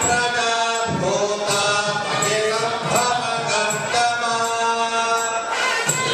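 Devotional chanting with music, voices holding long pitched notes, with a few percussive strikes.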